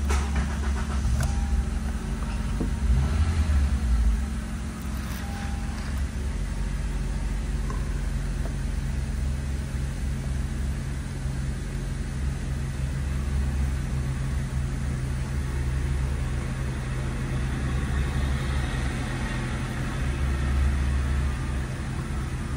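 A 2013 Honda CR-V's 2.4-litre four-cylinder engine idling steadily, heard from inside the cabin. It swells briefly about three seconds in, and there are a few light clicks in the first few seconds.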